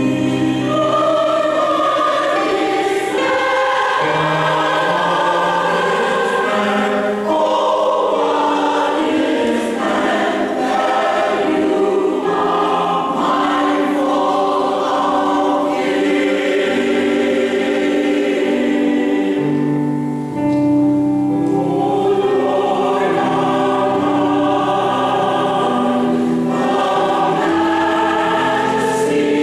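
Mixed choir of women and men singing a choral anthem in sustained, changing chords.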